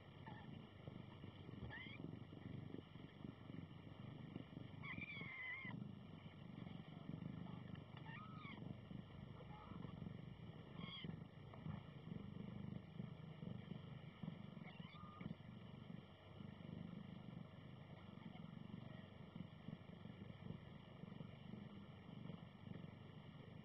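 Faint, thin, high squeaks from week-old kittens, five or six short calls scattered through, over a low steady rumble.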